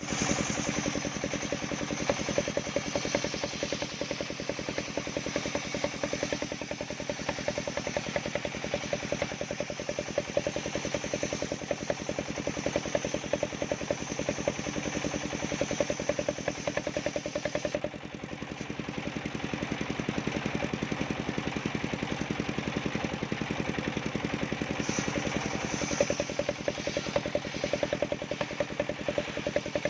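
Homemade circular saw rig driven by a small engine, running steadily with an even firing beat while cutting bendo wood. A high hiss over the engine drops away about 18 seconds in and comes back near 25 seconds.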